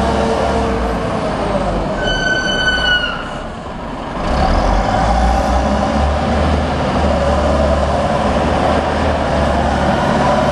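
Caterpillar 950B wheel loader's diesel engine running heavily. About two seconds in there is a brief high-pitched tone lasting about a second. The engine sound then drops for a moment and picks up strongly again about four seconds in.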